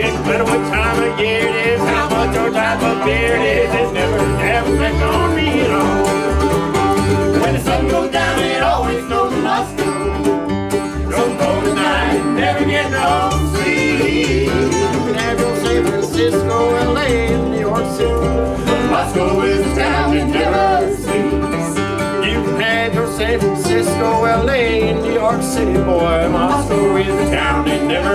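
Live bluegrass band playing an instrumental break: fiddle and banjo taking the lead in turn over a flatpicked Martin D-18 acoustic guitar, mandolin and upright bass, with a steady driving rhythm.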